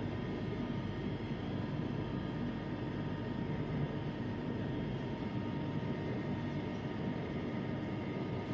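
Bangkok MRT Blue Line metro train running at speed, heard from inside the passenger car: a steady rumble of wheels and running gear with a faint, steady high whine.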